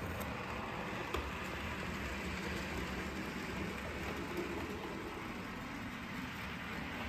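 OO gauge model diesel locomotive running along the layout track: a steady hum and rumble, with a sharp click about a second in.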